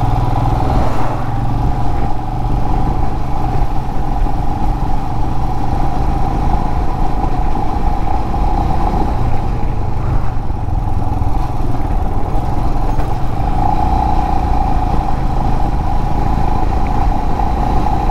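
Royal Enfield Himalayan motorcycle under way, its engine running steadily at an even pitch.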